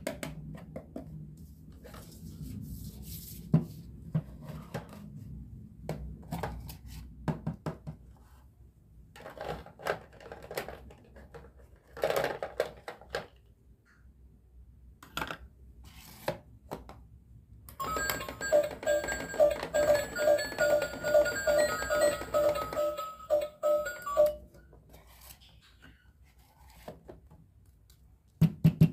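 Plastic toy kitchen pieces clicking and knocking as they are handled. About two-thirds of the way in, a battery-powered toy microwave plays an electronic beeping tune, about three beeps a second, for about six seconds, then stops abruptly.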